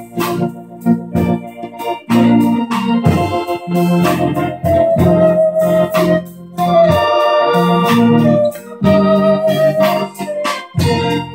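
Organ music: held chords and a wavering held melody note over a steady pulse of short, sharp attacks.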